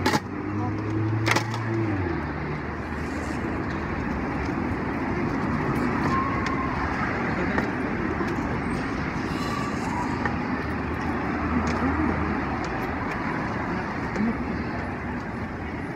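Steady street traffic noise, with sharp metal clinks from the cook's noodle strainer and ladle at the start and about a second later. Fainter clicks and faint voices come later.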